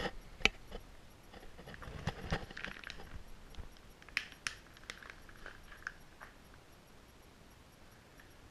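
Faint scattered clicks, taps and rustles of small objects being handled, dying away to near silence about six seconds in.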